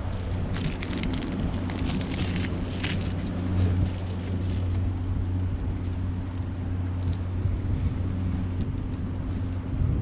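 Steady low drone of the engine of the boat towing the sailboat, held at a constant speed, with water washing and splashing along the hull.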